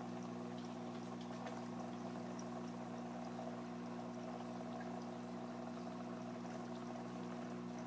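An octopus aquarium's circulating water running steadily, a continuous trickling and bubbling with faint small ticks, over a steady low hum.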